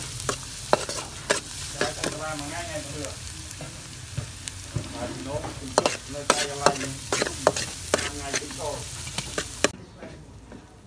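Metal spatula scraping and clacking against a wok as chopped garlic sizzles in hot oil, with sharp knocks every so often and a few brief wavering tones. The frying hiss falls away near the end.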